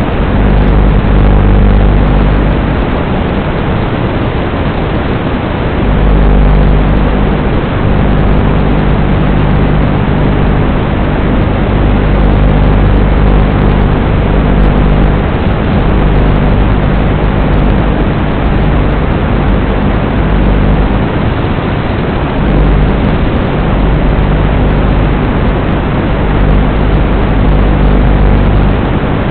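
Electric motor and propeller of a battery-powered FPV RC plane droning steadily under heavy hiss and wind noise, picked up by the onboard camera's microphone. Its pitch shifts a little with throttle changes.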